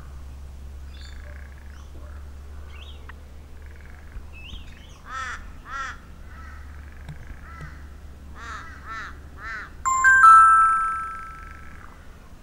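Mobile phone chime as a text message is sent: a bright chord of held tones that starts suddenly about ten seconds in and fades over a second or so. Before it, a bird calls a few times over a steady low hum.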